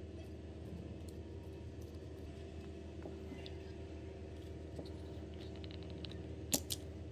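Faint metal ticks and scrapes as a screwdriver backs a small brass nut off a rusty threaded rod held in locking pliers. Near the end come two sharp metal clicks close together, over a steady low hum.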